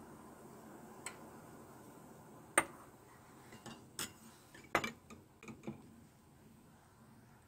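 Stainless steel ladle clinking against a ceramic bowl as broth is ladled into it: a light tap about a second in, a sharp clink about two and a half seconds in, then a run of lighter clinks over the next few seconds.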